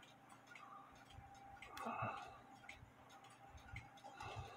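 A clock ticking faintly and steadily, with soft rustling of a wire pin being worked into a brass clock wheel's lantern pinion about two seconds in and again near the end.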